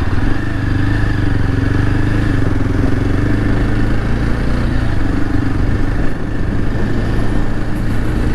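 Motorcycle engine running at a steady pitch while the bike is ridden along a dirt road.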